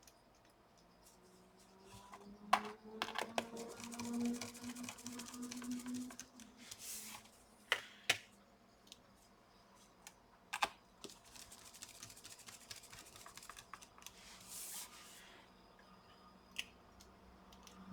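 Small clicks and stretches of rapid fine ticking from hand tools and screws on a laptop's casing during reassembly, with a few sharper knocks.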